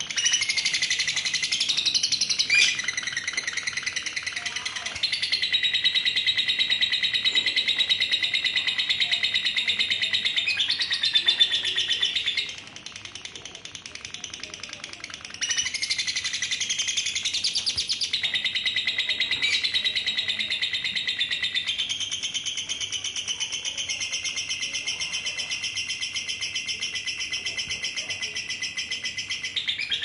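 Female lovebird giving its long 'ngekek': a continuous, rapid, high-pitched rattling trill. It breaks off for about three seconds midway, then starts up again.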